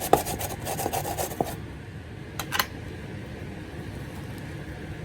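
Raw vegetables rubbed against a hand grater in quick rasping strokes, which stop about a second and a half in. A short double knock follows a second later.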